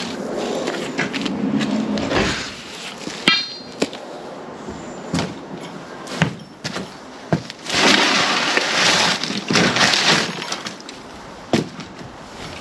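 Loose bricks and rubble clattering and knocking as they are handled and shifted, with a short metallic ring a little over three seconds in and a longer stretch of clattering near the end.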